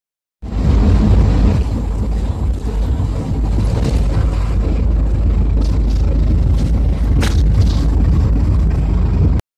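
A jeepney on the move, heard from inside its open-backed passenger cabin: steady engine rumble and road noise, with a short rattle or knock about seven seconds in.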